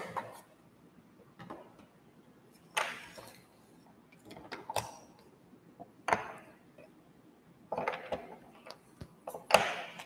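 Small shape blocks being set down and shifted on a tabletop: about half a dozen separate clacks and taps, a second or two apart.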